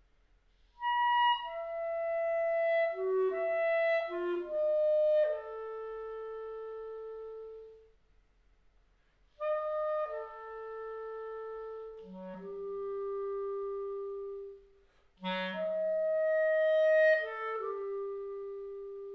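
Solo clarinet playing three phrases of quick notes, each settling onto a long held note, with a short silence after the first phrase.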